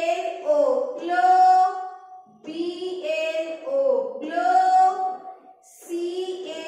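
A voice reading out English syllables in a drawn-out, sing-song chant, several held phrases with short pauses between them.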